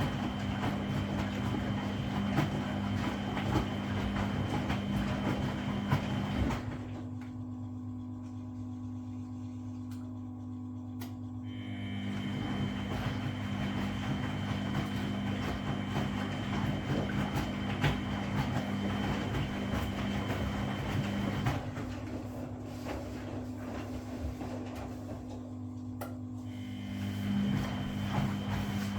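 Washing machine drum turning in the wash cycle: the motor hums steadily as the laundry tumbles. It stops for about five seconds a quarter of the way in, starts again, and pauses once more near the end before turning again.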